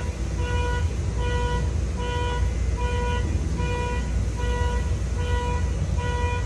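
Electronic warning beeper sounding a steady string of identical beeps, a little faster than one a second, over a continuous deep engine-like rumble.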